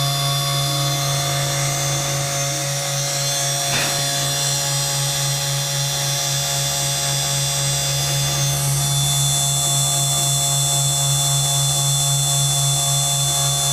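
Small CNC router spindle motor running with a steady hum and a high whine as its engraving bit mills traces into a copper-clad textolite circuit board. There is a brief click about four seconds in, and the high whine strengthens a little past halfway.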